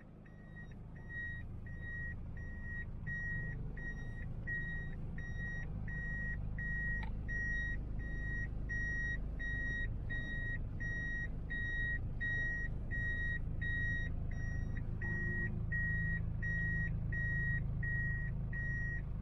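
Toyota Hiace's reverse-gear warning beeper, heard inside the cabin, sounding a steady repeating high beep about one and a half times a second while the van reverses. Under it runs the low, steady rumble of the van's 1KZ-TE 3.0-litre turbodiesel engine.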